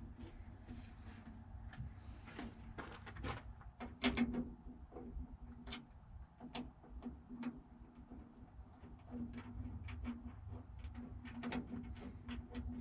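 Scattered light clicks and taps of a hand tool driving the screws that hold a new door latch inside the steel door of an M35A2 truck, over a faint steady hum.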